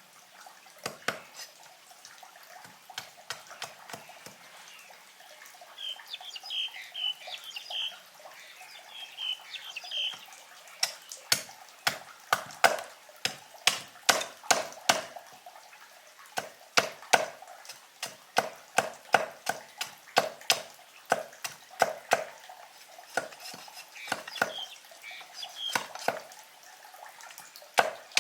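Sharp knocks of a hand tool striking wood, sparse at first and then in quick runs of two or three a second, as when shaping parts for a handmade trap.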